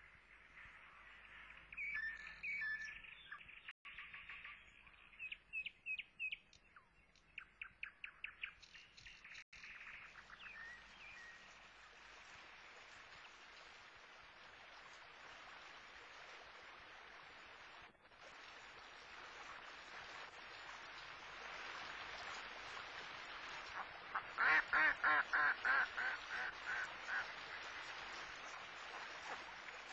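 Small songbirds chirping and trilling for the first ten seconds, then a steady rush of flowing river water. Near the end a mallard hen quacks in a quick run of about ten calls that fade away.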